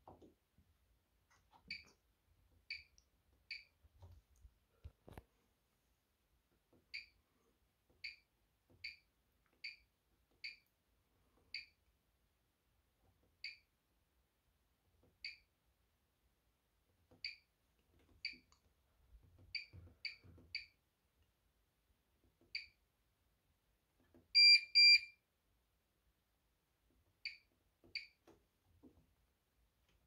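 Bosch Serie 6 washing machine control panel beeping: about twenty short single beeps at one high pitch as its buttons are pressed and its programme dial is turned, with two longer, louder beeps about three-quarters of the way through.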